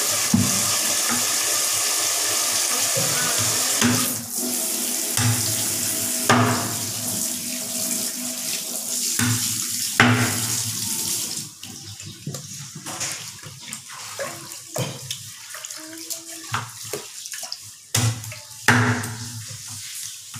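Steady running water that stops about eleven seconds in, over the knocks of a cleaver chopping raw chicken on a wooden cutting board. After the water stops, the irregular chopping knocks carry on alone, with a hard strike near the end.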